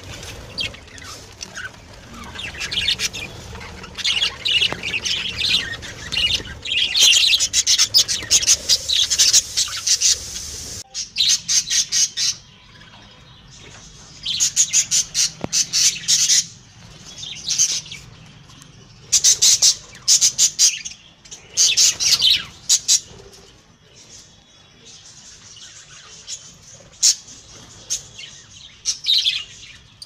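Budgerigars chirping and chattering in bursts of rapid, high-pitched chirps, with short pauses between the bursts.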